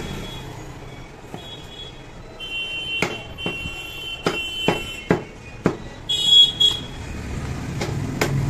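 Meat cleaver chopping bone-in mutton chest pieces on a wooden log chopping block: about ten sharp chops, several in quick succession in the middle. A high-pitched tonal sound, like a horn or alarm, sounds in the background over the middle and is loudest about six seconds in.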